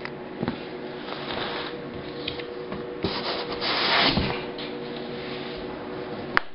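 Cardboard box flaps and a paper instruction sheet rubbing and scraping as the box is opened and the sheet is pulled out, loudest about three and a half to four and a half seconds in, with a few light knocks. A steady hum runs underneath.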